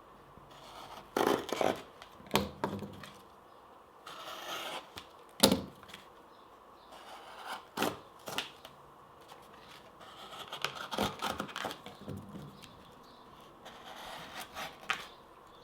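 Swiss Army knife blades cutting through cardboard, one with a plain edge and one with a serrated edge: a series of short, irregular scraping and tearing strokes, with one sharper snap about five seconds in.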